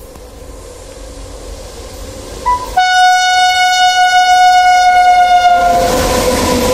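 An Indian Railways electric locomotive hauling a freight train comes closer, growing louder, and sounds a brief toot followed by one long horn blast of about three seconds whose pitch sags slightly at the end. The locomotive then passes close by with a loud rumble of wheels and wagons.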